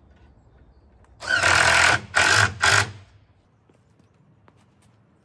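Cordless drill driving a screw into a wooden frame: one run of about a second, then two short bursts.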